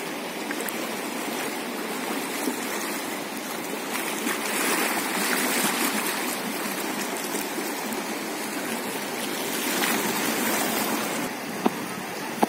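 Steady rushing of a muddy river in flood, fast turbulent water churning past, a little louder about halfway through. A single sharp click near the end.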